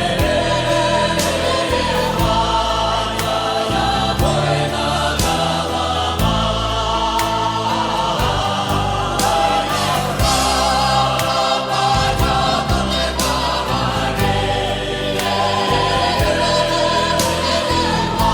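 Background music: sustained choir-like voices with no clear words over a bass line and a steady beat.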